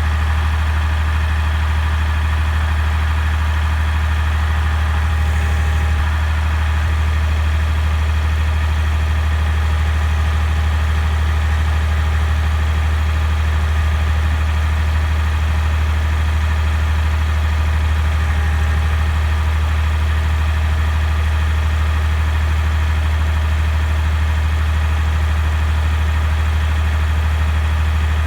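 Tractor engine running at a steady speed, with no revving, as it powers a three-point-hitch backhoe.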